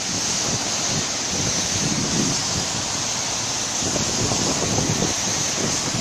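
Wind blowing across the microphone: a steady rushing noise with uneven low buffeting gusts.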